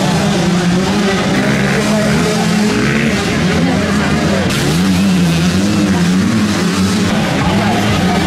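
Motocross bike engines running on the track, a steady engine note that rises and falls in pitch as the riders work the throttle.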